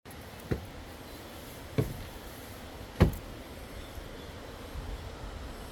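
Three dull thumps, about a second apart, the last the loudest, over a steady low background rumble.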